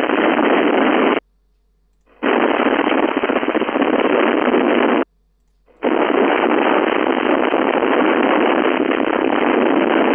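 Hiss heard through a CB radio receiver tuned to 11-meter FM, cutting in and out abruptly in three stretches: one ending about a second in, one of about three seconds, and one of about four and a half seconds. It sounds like carriers or the squelch opening on the channel with no voice coming through.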